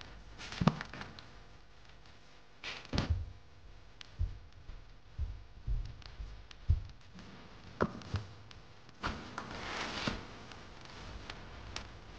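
A dozen or so soft thumps and taps, scattered and uneven, from a kitten moving about on foam floor mats and play toys, with a longer rustle about three quarters of the way through.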